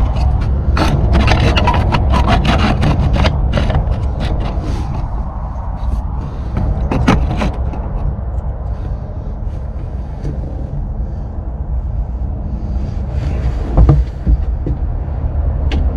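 Scrapes, clicks and knocks from handling and work in a boat's engine bay, thickest in the first few seconds with a sharp knock near the end, over a steady low rumble.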